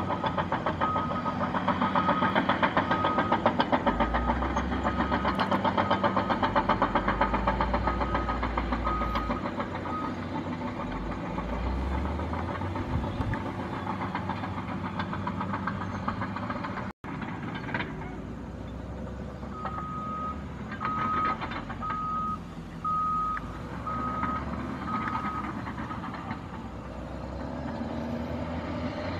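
Diesel earth-moving machinery running on a construction site, with a reversing alarm beeping about once a second for several seconds, then a second run of beeps later on.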